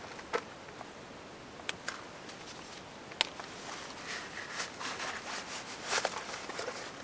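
Backpack straps and gear being handled: a few scattered sharp clicks, the loudest about three seconds in, and nylon fabric rustling that gets busier in the second half as a soft flask is pulled from a shoulder-strap pocket.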